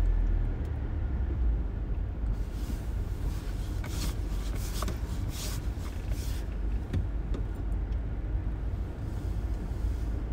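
Car interior noise while driving slowly: a steady low rumble of engine and tyres heard from inside the cabin. A few brief hissing noises come in the middle.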